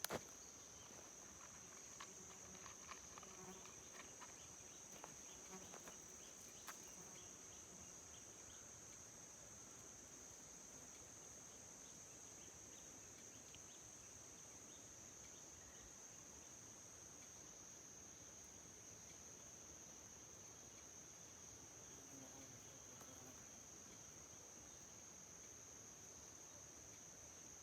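Faint, steady high-pitched chirring of insects holding one continuous tone. A few soft clicks and knocks in the first several seconds.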